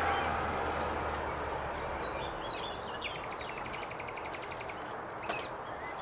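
Birds calling against steady outdoor background noise: brief chirps, then a fast, even trill, and a sharper call a little after five seconds in. A low rumble stops about two seconds in.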